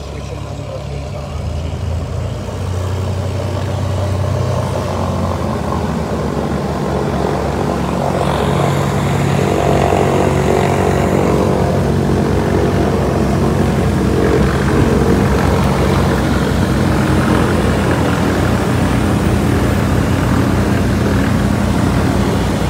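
Twin-engine propeller aircraft taxiing closer, its engines and propellers running steadily and growing louder as it approaches.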